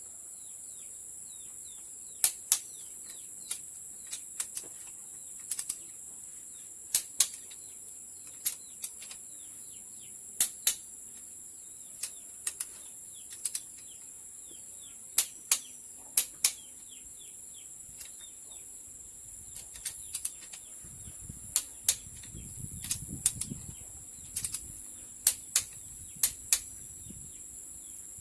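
Sharp, irregular clicks and knocks, often in pairs, from hand work on the engine, over a steady high insect drone; a low rumble comes in about three quarters of the way through.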